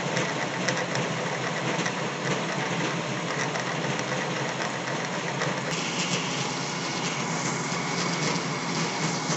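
Metal lathe running under power feed, the cutting tool taking a 1.5 mm deep cut along a steel workpiece in a step-turning pass: a steady machine hum with a dense cutting noise.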